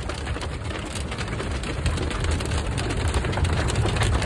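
Hail and heavy rain drumming on a car's roof and windscreen, heard from inside the cabin: a dense, continuous patter of many small hits over a low rumble, growing slightly louder toward the end.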